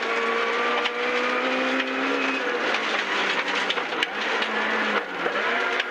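Vauxhall Nova 1400's 1.4-litre four-cylinder engine running hard at steady revs on a rally stage. The revs drop about two and a half seconds in and hold lower.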